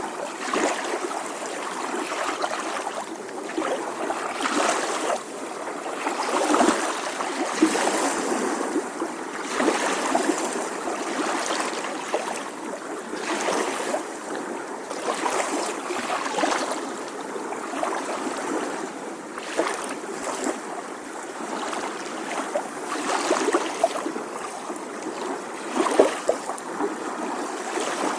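Small sea waves lapping on a shore: water washing in and draining back in a steady rhythm, a swell every two to three seconds with small splashes.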